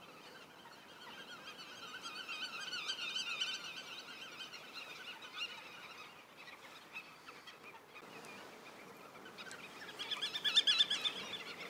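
Birds calling: a chorus of rapid, wavering, repeated notes that swells from about a second in, fades off, and comes back louder near the end.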